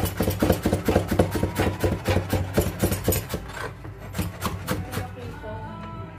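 Quick, even tapping of a kitchen utensil during food preparation, about five strokes a second, thinning out after about three and a half seconds.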